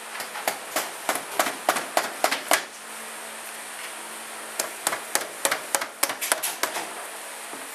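Mallet tapping repeatedly on the aluminium cylinder-head cover of a KTM RFS four-stroke engine to break the sealed cover loose. Two runs of quick, light knocks with a pause of about two seconds between them.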